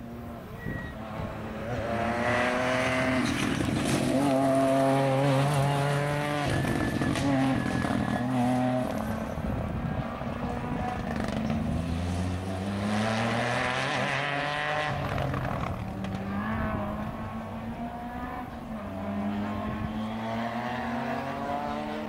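Rally car engine revving hard through the gears as it races past, its pitch climbing and then dropping again at each upshift.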